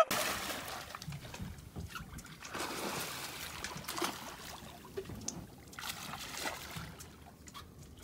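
Quiet, irregular splashing and sloshing of water beside a boat as a hooked shark thrashes at the surface on the line.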